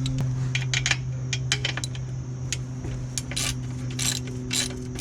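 Socket ratchet wrench clicking in short runs as it is swung back and forth, loosening the oil drain plug. A steady low hum runs underneath.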